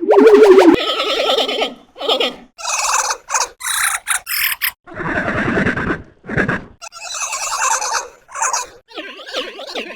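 A run of about ten short animal cries, squealing and gobbling in character, altered with audio effects. They follow a loud warbling effect tone that cuts off under a second in.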